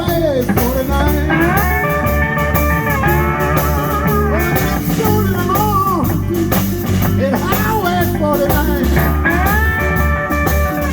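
Live blues band playing a blues song: a lead line of bent and held notes over bass and drums.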